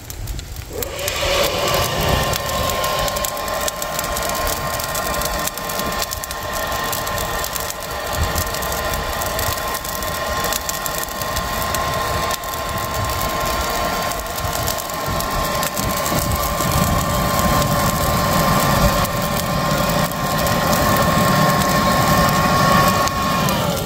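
Small electric blower motor running at a steady high whine, over a rush of air, and switched off near the end. It is blowing air into the charcoal to get the coals burning.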